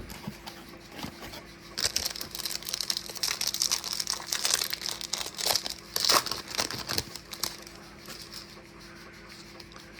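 Foil wrapper of a 2025 Topps baseball card pack being crinkled and torn open. A dense crackling of foil starts about two seconds in and dies away a couple of seconds before the end.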